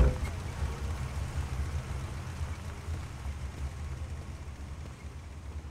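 A large vehicle's engine, likely a bus, rumbling low and steady, slowly fading away.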